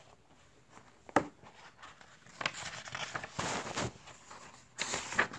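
Pages of a paperback picture book being handled and turned: a sharp tap about a second in, then paper rustling and flapping through the middle and again near the end.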